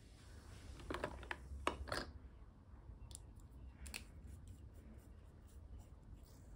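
A handful of light clicks and taps, bunched about a second in, then a few fainter ticks.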